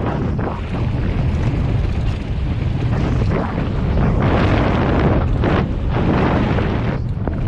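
Wind buffeting the microphone hard over a constant low rumble, swelling louder about four seconds in.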